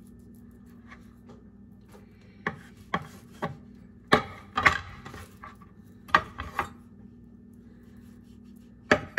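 Chef's knife scoring the fat on a raw pork chop, the blade knocking against a wooden cutting board in a string of sharp, irregular taps, with a faint rubbing of meat on wood between them.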